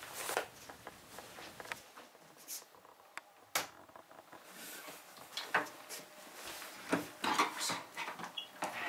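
Scattered light knocks and clicks of someone moving about a small room, the sharpest about three and a half seconds in, ending with the rattle of a door handle and a door being opened.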